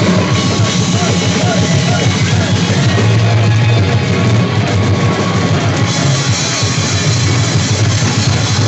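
Live heavy metal band playing loud: distorted electric guitars and drum kit running without a break, heard from within the crowd.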